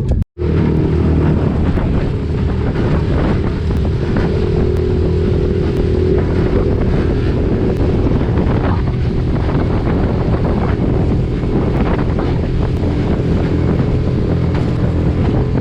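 Small boat's outboard motor running steadily under way, with strong wind buffeting the microphone; the sound cuts out for a moment near the start.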